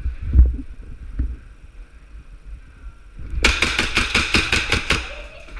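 Gas-blowback airsoft MP7 firing one rapid full-auto burst of about a dozen shots in a second and a half. Its sharp cracks come a little past halfway through, after a few low thumps of movement near the start.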